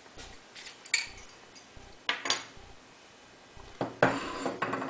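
Light metallic clinks of small metal parts being handled: a few separate clicks, then a short clatter about four seconds in.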